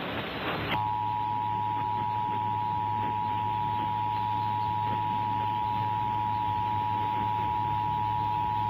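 Emergency Alert System two-tone attention signal (853 Hz and 960 Hz sounding together), starting about a second in and holding steady for about eight seconds, then cutting off. It plays over a low hum and hiss from the broadcast.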